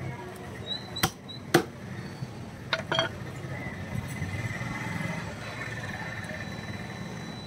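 A heavy cleaver chopping chicken on a wooden block: four sharp chops in the first three seconds, the loudest about a second and a half in. After that only a steady low background murmur.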